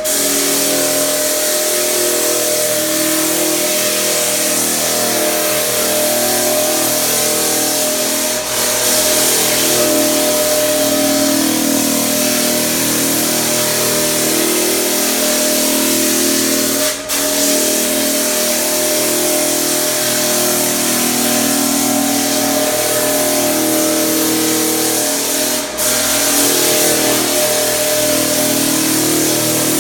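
Floor sander running steadily while sanding a parquet floor: a loud, even whir with a steady hum over a wide hiss, dipping briefly three times.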